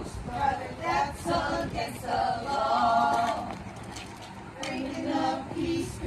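A group of voices singing or chanting together without instruments, with a longer held stretch a couple of seconds in.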